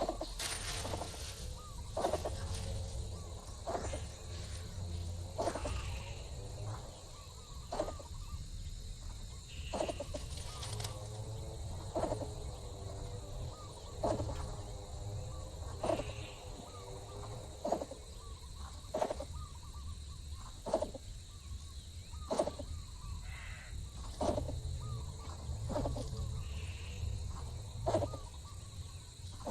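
Birds calling in short, sharp notes, one every one to two seconds, over a steady high insect drone.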